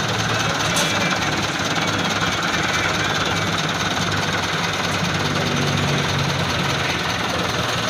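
Massey Ferguson 385 tractor's diesel engine idling steadily.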